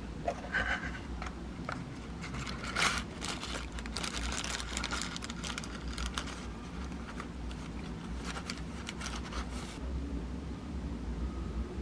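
Clear plastic wrapping on a box of incense sticks crinkling as it is torn off and handled, a run of sharp crackles that stops about ten seconds in.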